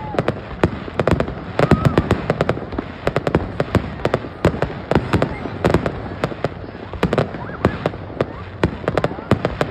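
Fireworks going off in a rapid, irregular series of sharp bangs and pops, several a second.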